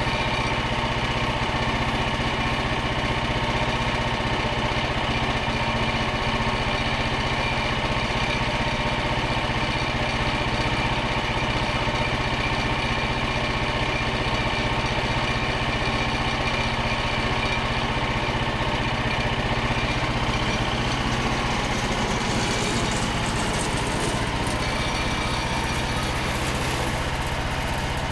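Small petrol engine of a Frontier OS27 portable bandsaw mill running steadily at constant speed. A higher hiss joins in about three-quarters of the way through.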